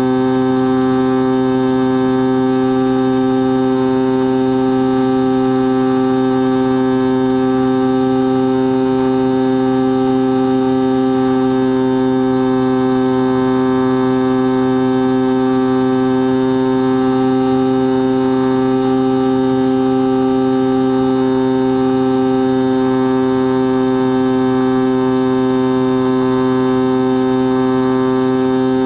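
X-8 flying wing's electric motor and pusher propeller running at a steady cruise throttle, heard from aboard: a loud, unchanging buzzing drone with many overtones.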